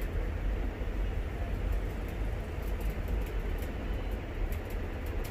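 Steady low background rumble with a faint hiss, no distinct events, while a hand iron is pressed over a folded fabric strip.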